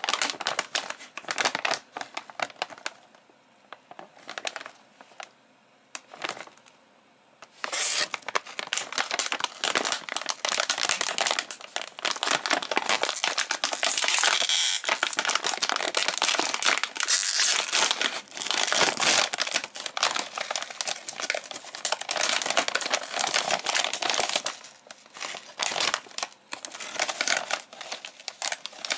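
Foil-lined potato chip bag crinkling loudly as it is handled and pulled open, with a few quieter seconds early on.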